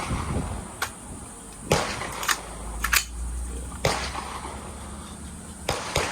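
Several gunshots at a shooting range, about six sharp reports at uneven intervals of roughly half a second to two seconds.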